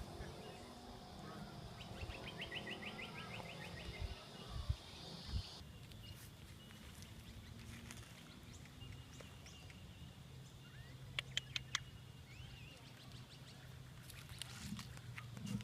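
Quiet outdoor farm ambience with faint bird calls. About two seconds in there is a short, rapid run of high ticks, like a trill, and about eleven seconds in a few sharp clicks.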